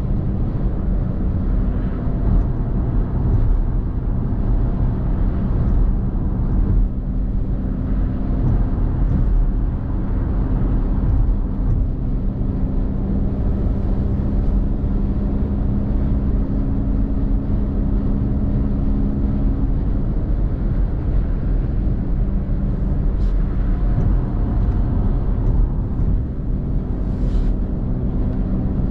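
Car driving at motorway speed: a steady rush of tyre and road noise with a low, even engine hum.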